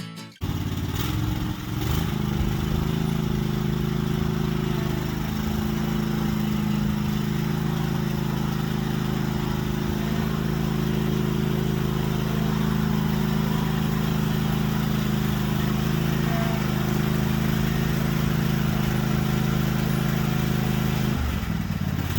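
An engine running at a steady speed, with its pitch shifting slightly near the end.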